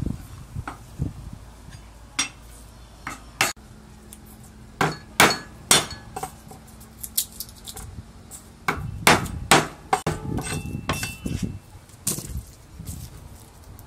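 Meat cleaver knocking on a wooden cutting board as a head of garlic is cut apart, in irregular sharp knocks with a few quick strokes in a row about five seconds in and again near nine to ten seconds.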